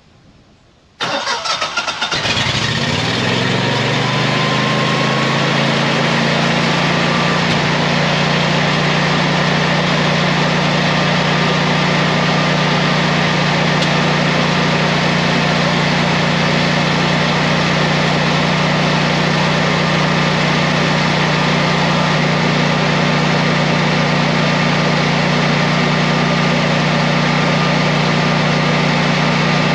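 Generac 22 kW standby generator's air-cooled V-twin engine starting automatically on a simulated power outage: it cranks briefly about a second in, catches and rises in speed, then settles into a steady, even run at governed speed.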